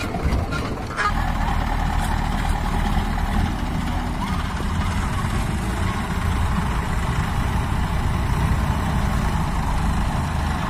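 Diesel engines of a tractor and a backhoe loader running steadily. A few knocks in the first second give way to an even, low engine sound.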